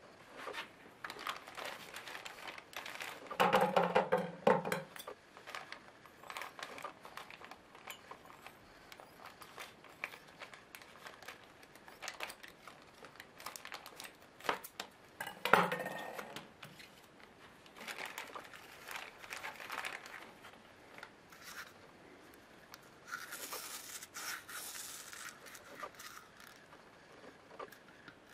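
Plastic packaging crinkling and tearing as it is handled, with scissors cutting through the card header. Two louder bursts of handling noise come about four seconds in and at the middle.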